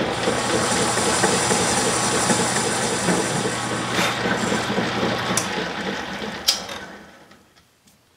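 Metal lathe running under a light final turning cut with a carbide tool: steady motor hum and cutting noise with a high whine. About four seconds in there is a click and the whine stops; the motor hum ends shortly after and the machine runs down to quiet, with another click before it dies away.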